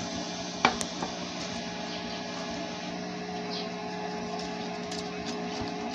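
A wooden spoon knocks sharply against an aluminium cooking pot of water a little over half a second in, followed by two lighter knocks. Under it runs a steady low hum with a faint hiss.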